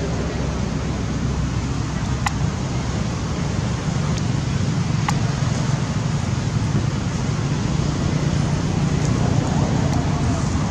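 Steady low rumbling background noise, with two faint clicks about two and five seconds in.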